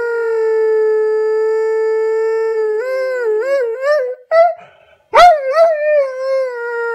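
Airedale terrier howling, played in slow motion: one long held note that turns into a wavering howl rising and falling about three times a second. The howl breaks off for about a second in the middle, then starts again loudly and keeps wavering.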